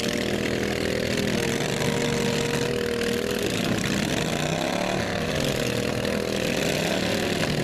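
Several racing lawn mower engines running at once, their pitches rising and falling as they rev and ease off.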